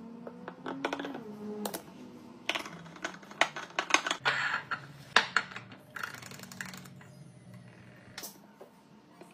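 Liquid hand soap pouring into a bottle, with a low tone that rises as it fills, then a run of sharp plastic clicks and scrapes as a pump dispenser is screwed onto the bottle's neck.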